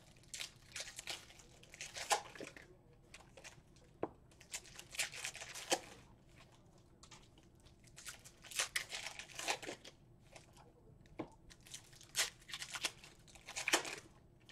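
Plastic trading-card pack wrappers being torn open and crinkled, in about four bursts of crackling a few seconds apart.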